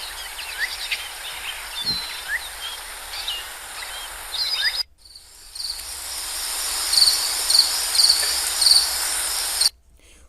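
Bird sound-effect previews played back. First, many small birds chirp over a steady hiss until it cuts off just under five seconds in. Then a second recording has a steady hiss and a short high chirp repeating about twice a second, which stops abruptly shortly before the end.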